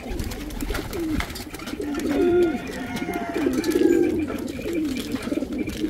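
Several racing pigeons cooing together, low wavering calls that overlap, with a few short clicks among them.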